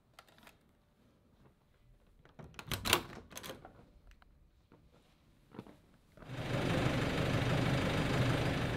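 Scattered clicks and knocks of things being handled in a quiet room, loudest a little before the three-second mark. About six seconds in, this cuts abruptly to a steady, much louder wash of street background noise.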